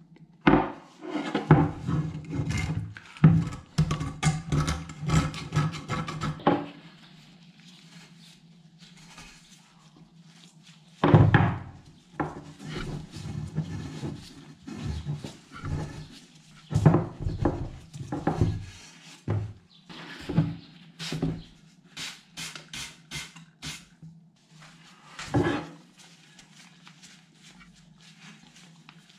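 Suspension fork parts, an aluminium fork lower and metal stanchion tubes, being handled and knocked against a wooden tabletop: irregular clatters and thunks in two busy bursts, then scattered knocks, over a low steady hum.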